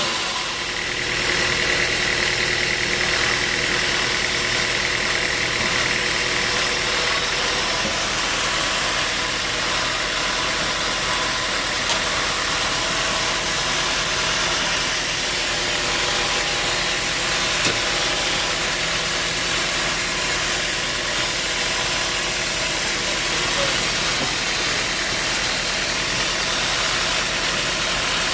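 Sawmill engine running steadily, an even drone that holds the same pitch throughout.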